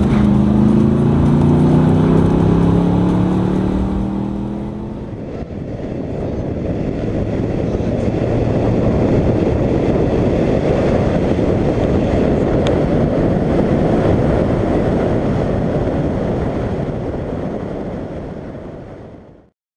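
Car engine pulling under acceleration, its pitch rising slowly over the first few seconds. It then gives way to a steady rumble of engine and road noise while cruising, which fades out near the end.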